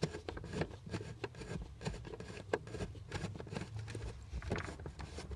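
A nut driver loosening a bolt on a dash panel: irregular light clicks and scrapes of metal on metal as the bolt is turned and handled.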